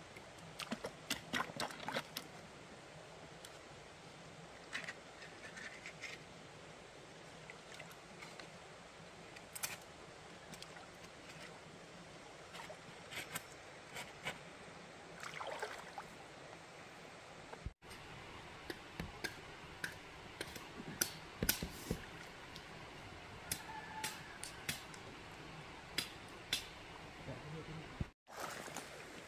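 Scattered sharp clicks and knocks of hands handling things, over a faint steady hiss. The sound cuts out abruptly twice, once past the middle and once near the end.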